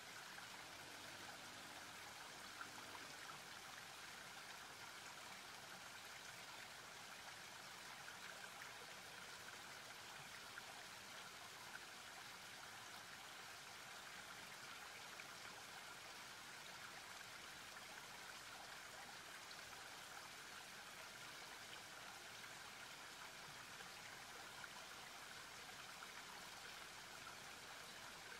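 Faint, steady rush of turbulent river water churning and foaming below a bridge.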